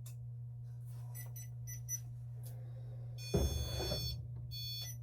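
Electronic beeping: short, high, repeated beeps, then a louder burst of mixed tones and static-like noise lasting about a second, from a little past the three-second mark, all over a steady low hum.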